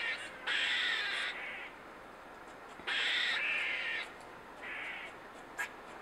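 A run of harsh cawing calls, each under a second long and a second or two apart, over a quiet background.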